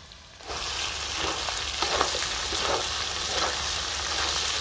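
Duck pieces sizzling on a large flat metal griddle (tawa) while a long metal spatula stirs and scrapes them in repeated strokes. The frying sound starts suddenly about half a second in.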